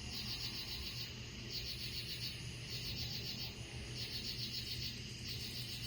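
Night insects chirping in repeated trains of rapid pulses, each train lasting under a second and recurring about every second and a quarter, over a steady low hum.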